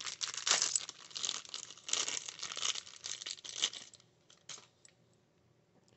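Plastic packaging around a small figure being crinkled and torn open: a run of rustles and crackles for about four seconds, then a few faint clicks before it goes still.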